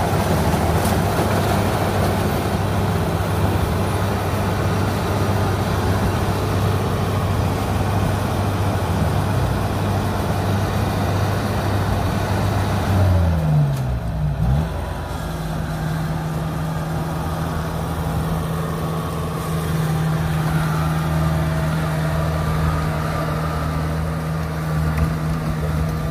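Kubota DC-70 combine harvester's diesel engine running steadily under load while it cuts rice in wet mud. About halfway through the engine pitch drops briefly and climbs back, then holds steady again.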